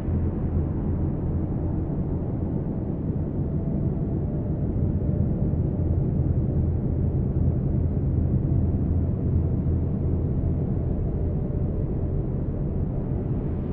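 Ultralight trike's engine and pusher propeller running steadily in cruising flight: an even, low hum that holds one pitch, dull and without any high end.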